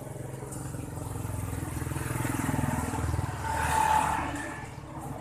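A motor vehicle passing along the street, its engine growing louder to a peak about four seconds in, then fading.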